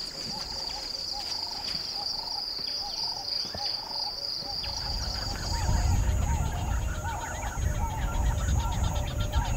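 Bush ambience. A high, steady insect buzz stops about halfway through, over a bird calling again and again in short rising-and-falling notes. In the second half a fast insect trill and a low rumble come in.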